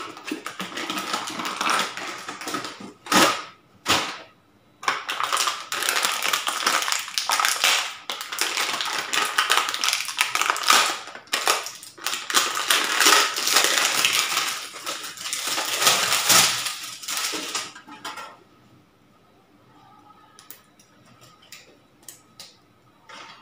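Handling noise from a PC power supply being readied for fitting: dense crinkling and rustling with sharp knocks and clicks. About five seconds before the end it drops away to a few faint clicks.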